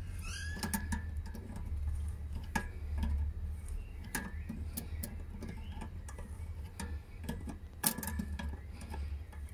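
Needle-nose pliers clicking on the adjusting nut of a water pump pressure switch as the cut-in (start-pressure) screw is turned tighter: scattered light metallic ticks over a steady low rumble.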